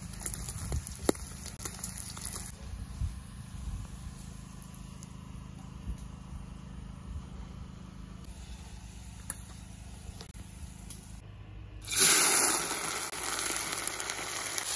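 Diced fat sizzling quietly in oil in a hot kazan, with a few scrapes and taps of a spatula. About twelve seconds in, a loud sizzle starts suddenly and carries on as diced beef heart goes into the hot fat to fry.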